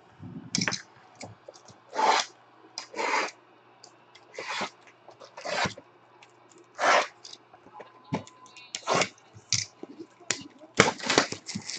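Sealed cardboard trading-card boxes being slid and handled, their plastic shrink wrap crinkling: short separate scrapes and rustles about once a second, coming thick and fast near the end as the wrap on a Bowman Chrome box is worked open.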